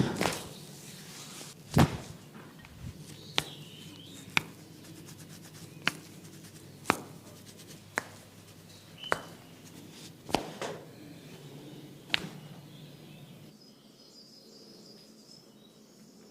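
About a dozen sharp cracks at uneven intervals, one every second or so, during a barber's head massage. They stop after about thirteen seconds.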